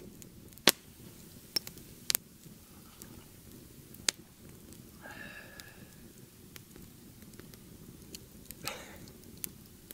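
Small wood campfire crackling: a handful of sharp, separate pops over a faint steady background. A short pitched sound comes about halfway through.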